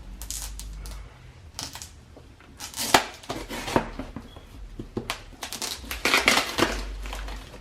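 A taped cardboard box being opened and its contents handled: rustling, crinkling and light clattering knocks in uneven bursts.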